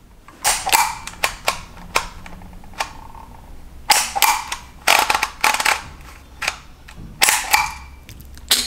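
Dymo Omega hand-held embossing label maker in use: sharp plastic clacks in irregular groups as the character wheel is turned and the handle squeezed to punch letters into the label tape.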